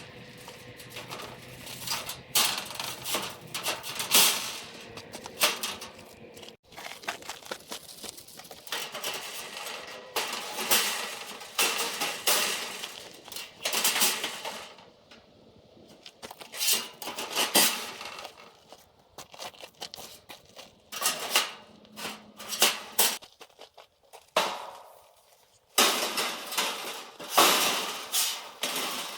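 Steel parts of a gate panel clanking, knocking and scraping as they are handled and fitted up on a metal work table: a string of short strikes with short pauses between them.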